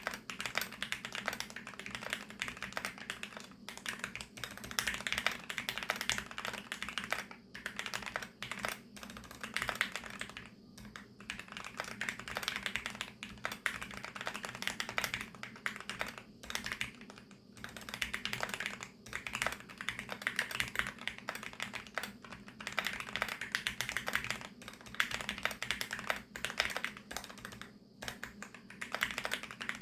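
Fast continuous typing on a 65% mechanical keyboard with linear switches lubed with Krytox 205, a dense run of keystrokes with a few short pauses.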